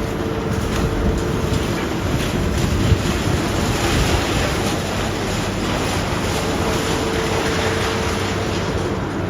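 Demolition machinery breaking down a building: a steady crunching and clattering of broken concrete and rubble over a running diesel engine. A steady hydraulic whine comes in at the start and again for a few seconds near the end.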